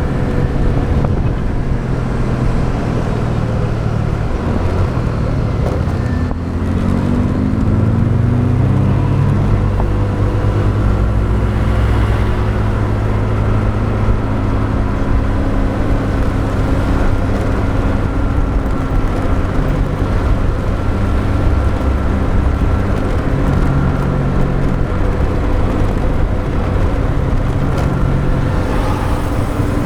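Motorbike engine running during a ride, its pitch rising about six seconds in as it speeds up, with surrounding road traffic.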